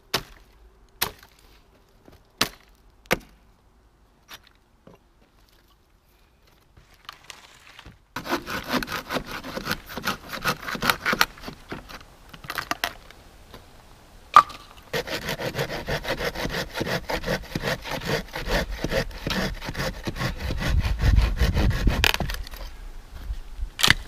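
An axe chopping into a dead fallen log, four strikes in the first three seconds, then a Kershaw folding saw cutting through the log in quick back-and-forth strokes, with a sharp crack of wood about halfway through.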